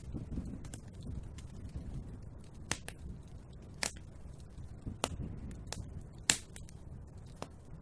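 Wood fire burning in a fireplace: irregular sharp crackles and pops over a steady low rumble of the flames, the loudest pop about six seconds in.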